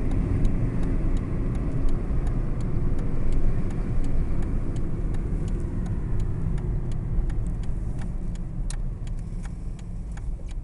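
Car cabin noise while driving: a steady low rumble of engine and tyres, easing a little near the end, with light clicks a few times a second.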